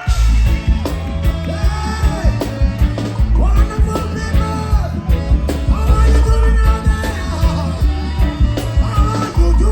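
Live reggae band playing loud through a concert sound system. Heavy bass and drums come in suddenly right at the start, with singing over the top.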